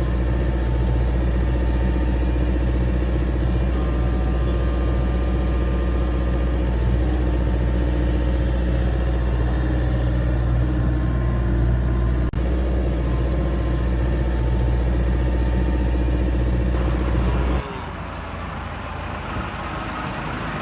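A heavy engine runs steadily with a low, even hum. It gives way abruptly to a quieter background noise near the end.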